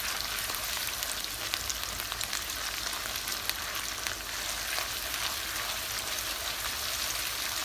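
Sliced onions and ginger-garlic paste frying in hot oil in a karahi on high heat: a steady sizzle with many small crackles, as a silicone spatula stirs them.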